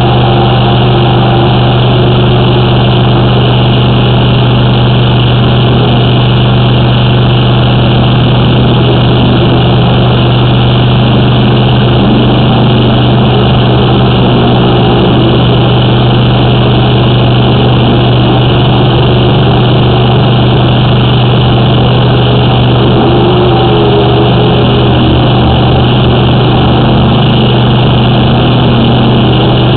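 Engine of a high-pressure drain jetter running steadily, a loud, unchanging low drone.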